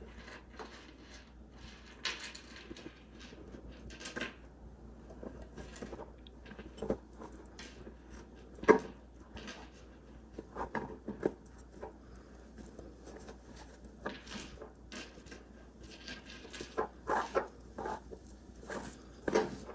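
Faint handling noises from working a cord tassel by hand: soft rustling and scattered light taps and clicks as the cord ends are pulled through, with one sharper knock about nine seconds in.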